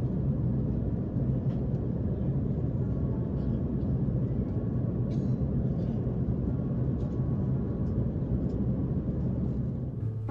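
Steady low rumble of cabin noise inside an Airbus A380 airliner, with a few faint clicks and rattles.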